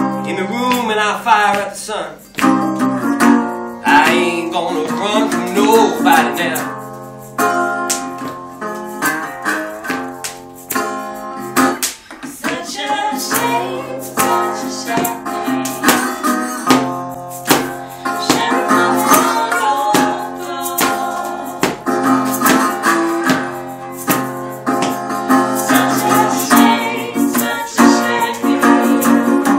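Acoustic guitar in open D tuning playing a bluesy folk song, with several voices singing along over it.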